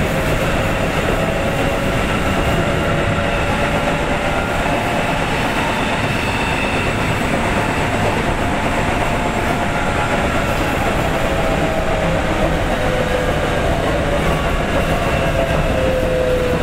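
Keikyu 800 series electric train, motor car DeHa 812-2 with field-chopper control, running along the line: a steady rumble of wheels on rail with a faint motor whine holding near one pitch and drifting slowly.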